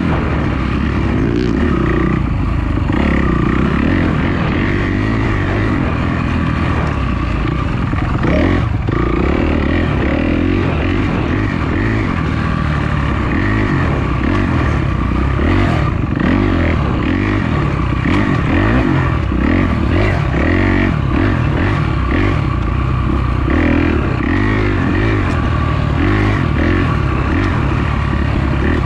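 Kawasaki off-road dirt bike engine running continuously at changing throttle, revving up and backing off as the bike is ridden along a rough wooded trail, with the bike rattling over the ground.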